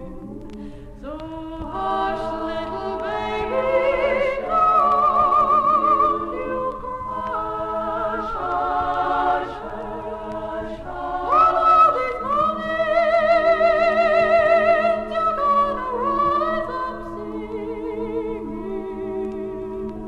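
A cappella women's vocal group singing slowly in close harmony, with long held notes and vibrato, from a 1961 LP recording. The voices swell louder twice.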